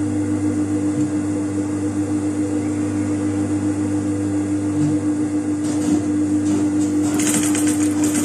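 Juki industrial sewing machine: its motor hums steadily, then it starts stitching with a couple of short bursts about six seconds in and a fast, even run of needle strokes near the end.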